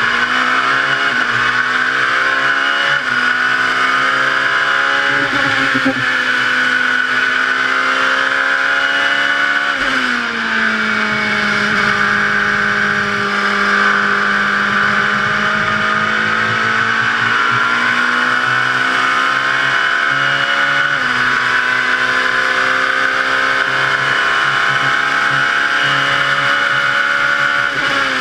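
LMP2 prototype race car's engine at racing speed, heard from the cockpit: revs climb and step back at each upshift, drop about ten seconds in, hold lower for a long stretch, then climb again through more upshifts.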